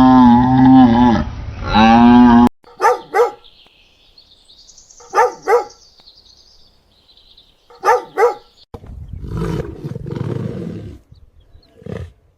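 Water buffalo lowing: one long, deep moo that cuts off abruptly about two and a half seconds in. It is followed by three pairs of short animal calls spread over several seconds, then a rough, noisy stretch.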